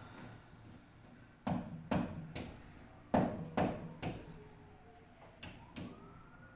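Sharp knocks from repair work, about eight of them in groups of two or three, like tool strikes on a hard surface.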